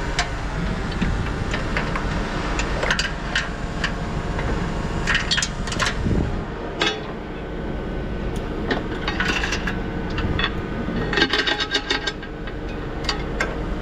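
Scattered metal clinks and knocks from a lifting hook and its rigging being handled, densest near the end, over an engine running steadily.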